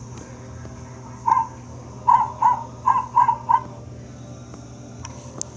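An animal's short, harsh calls: one call, then a quick run of five about a second later.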